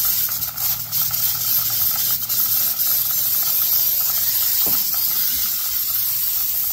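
Aerosol can of brake cleaner spraying continuously in a steady hiss, flushing the rear main seal area of the engine block clean of old RTV.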